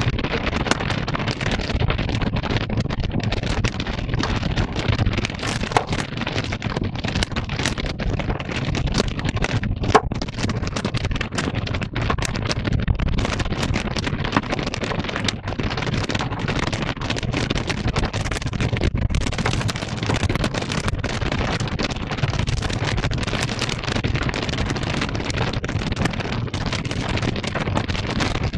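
Strong storm wind buffeting the microphone: a steady low rumble with a few brief knocks.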